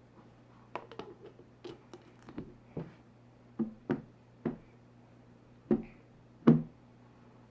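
Kitchen handling sounds: an irregular series of light knocks and clicks, like utensils and dishes being handled, with the loudest knock about six and a half seconds in. A low steady hum runs underneath.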